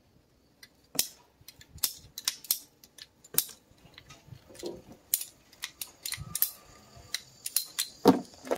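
Black hand-held hose cutter clicking and snipping as clear braided vinyl hose is cut and fitted, a run of irregular sharp clicks from about a second in.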